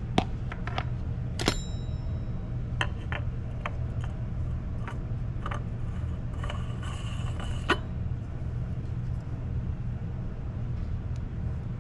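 Handling noise under the hood as a new spin-on oil filter is threaded onto its mount by hand and a plastic funnel is moved about: scattered clicks and light knocks, one with a short metallic ring, and a brief scraping rustle about two-thirds of the way through. A steady low hum runs underneath.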